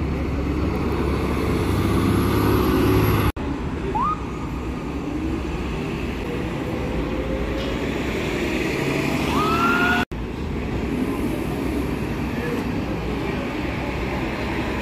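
City transit buses running at street level, a low engine drone with traffic noise and a whine that rises as a bus pulls away. The sound cuts off abruptly twice.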